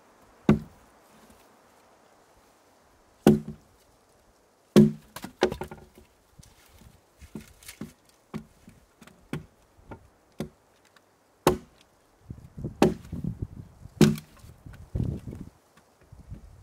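Hatchet chopping and splitting firewood into kindling on a log, in irregular strikes: a few hard, sharp blows, runs of lighter taps, then another cluster of harder blows near the end.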